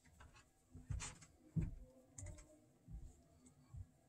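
Small Phillips screwdriver backing a tiny screw out of the bottom plate of an HO-scale model locomotive. Faint clicks and light knocks of the tool, screw and plastic chassis come every second or so.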